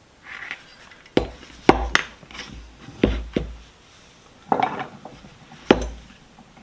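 Metal vise parts being handled and knocked together: about six sharp clanks with brief ringing, spread out between softer scraping and shuffling.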